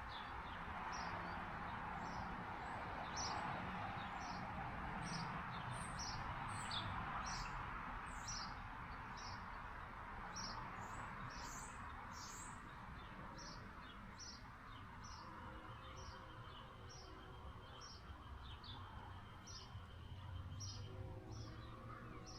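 A small bird chirping over and over, short high chirps about twice a second, over a steady rushing background noise that eases off after the middle.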